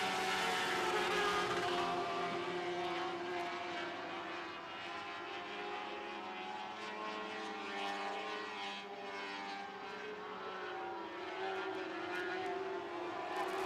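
Sprint car engines running together at racing speed around a dirt oval, a steady blend of engine notes whose pitch swells and dips as the cars go around, with a few passing glides past the middle.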